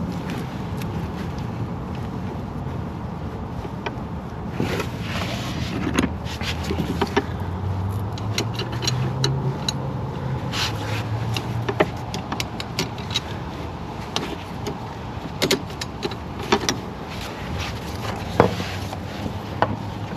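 Irregular metallic clicks and taps of a hand wrench working a bolt on an engine's intake plenum bracket, over a steady low hum.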